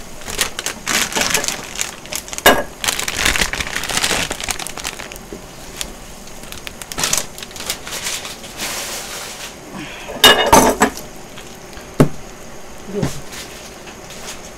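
Foil-lined instant ramen packets crinkling as they are emptied and handled, dense for the first few seconds and again in a short burst later on, with a few sharp clicks and knocks on the table and cookware.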